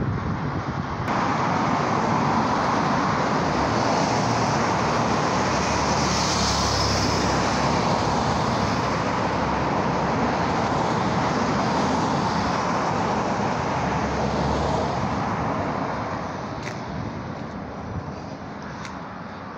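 Road traffic going by: a steady rushing noise of passing vehicles that swells in the middle and fades away near the end, with a couple of faint clicks.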